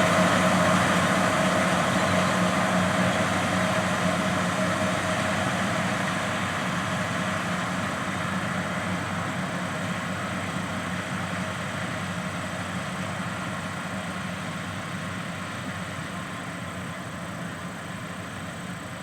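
John Deere 9460RT track tractor's diesel engine running steadily while pulling a strip-till bar, with a thin high whine over the drone. The sound fades gradually as the tractor moves away.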